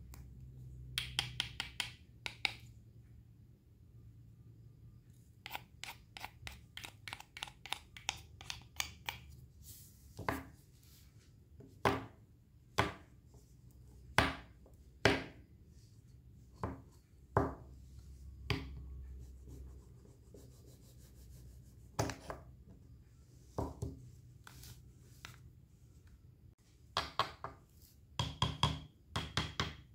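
Kitchen knife cutting fresh produce on a cutting board. There are quick runs of light slicing strokes, several a second, and between them single harder cuts about a second apart that knock on the board.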